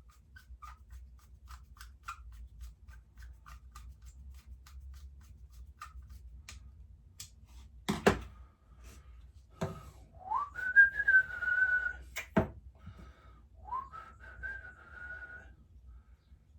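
A man whistling two notes, each sliding up and then held, while light clicks and a few sharp knocks come from small engine parts being handled and refitted.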